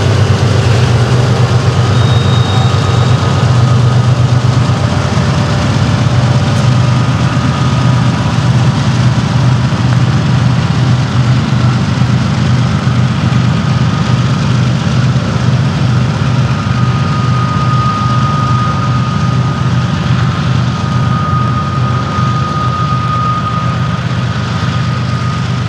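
Diesel-electric freight locomotives, a BNSF unit and Montana Rail Link units, running past close by with a loud, steady, deep engine drone that eases slightly as they pull away and the tank cars roll by. A thin steady high tone joins in the second half.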